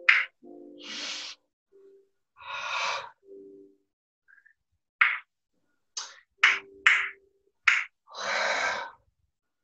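A man vocalising the rhythm of a dance exercise without words: short sharp hissed 'tss' sounds, about five of them close together near the end, three long breathy exhalations, and brief bits of hummed tone.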